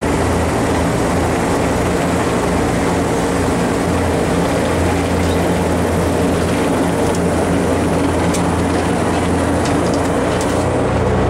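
Zeppelin NT airship's piston engines and propellers droning steadily, heard from inside the passenger gondola.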